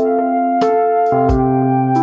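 Background music: sustained keyboard chords that change about a second in, with light percussion clicks.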